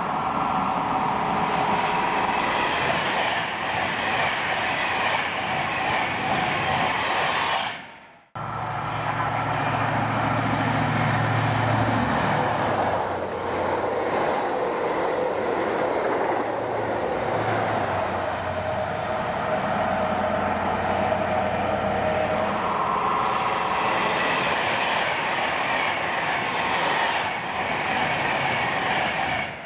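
Trains running through a railway station: the steady rolling rush of wheels on rail. After an abrupt cut about eight seconds in, another train passes, with a low engine hum for its first few seconds.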